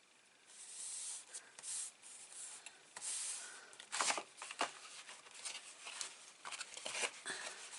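Cardstock and paper being handled: rustling and sliding that comes and goes, with a few sharp taps or clicks about four seconds in.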